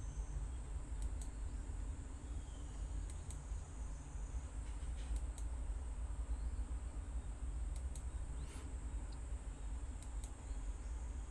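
Computer mouse clicking, a quick double click about every two seconds, five times, over a low steady room hum.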